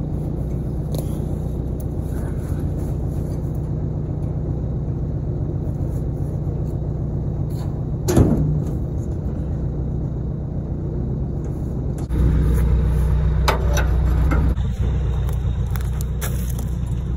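Dodge Ram pickup's engine idling steadily, with a sharp knock about halfway through and a louder stretch of rumble with a few clatters a few seconds later.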